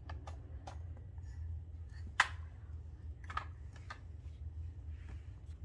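Scattered light knocks and taps as a baby handles and crawls among plastic toys, with one sharp clack about two seconds in. A steady low hum runs underneath.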